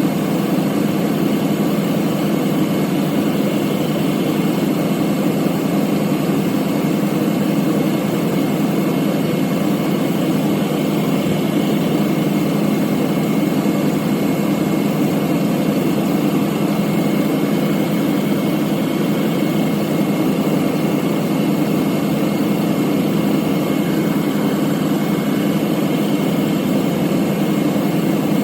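A 2000 Ford F-250 pickup idling steadily with the A/C running while its system is charged with refrigerant.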